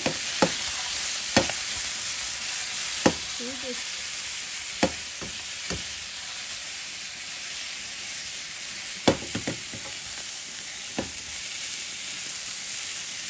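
Sausages sizzling steadily in a non-stick frying pan as the pan is shaken, with scattered sharp knocks as the sausages roll and the pan bumps the stovetop.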